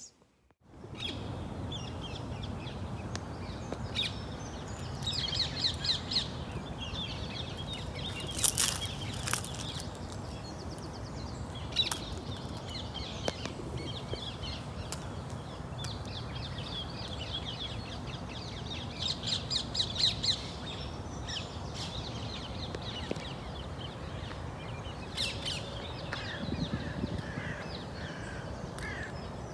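Birds calling in short rapid series over a steady background hiss, with a few sharp knocks about eight to nine seconds in.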